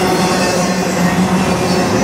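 Double-stack intermodal freight train's well cars rolling past at speed: a loud, even rush of steel wheels on rail with a steady low tone underneath.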